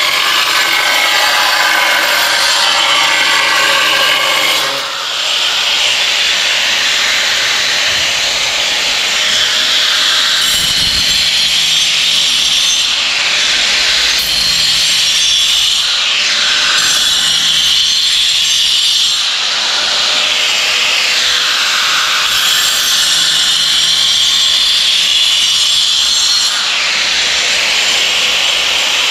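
Handheld angle grinder cutting through a ceramic tile: a loud, steady high whine that drops in pitch several times as the disc bites into the tile and climbs back as it frees up, with a brief dip in level about five seconds in.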